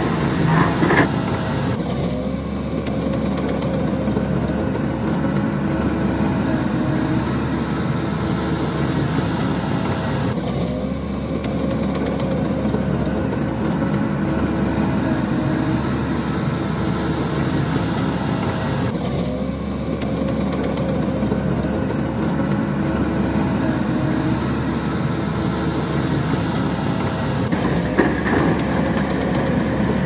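Steady diesel engine noise of heavy earthmoving machinery running, a continuous drone with a low rumble, its pattern recurring about every eight to nine seconds.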